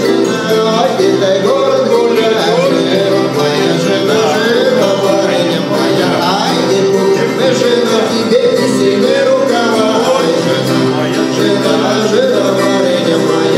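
Russian wing-shaped gusli strummed, the left-hand fingers resting between the strings to mute one set and let the other ring, so a steady droning chord sounds under the strumming. A man sings a melody along with it.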